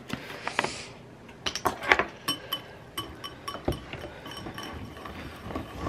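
Powdered sugar poured from a box into a glass bowl with a brief soft hiss, then a wire whisk clinking over and over against the glass bowl as condensed-milk icing is mixed.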